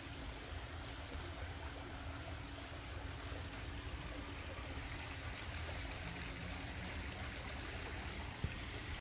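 Steady trickle of a backyard rock water feature, with a single faint click near the end.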